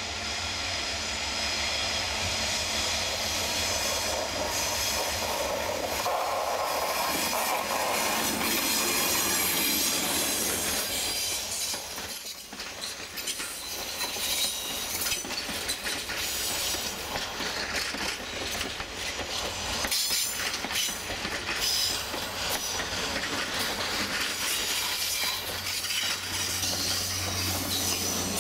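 ALCO diesel locomotive engine working as a passenger train comes around a curve and passes, growing louder over the first ten seconds. The passenger cars then roll by with wheels clicking over the rail joints and flanges squealing on the curve. Near the end the low engine hum of a second locomotive at the rear draws closer.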